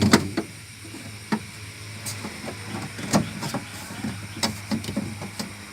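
Scattered clicks and knocks of hand tools and plastic refrigerator parts being handled during reassembly, over a steady low hum.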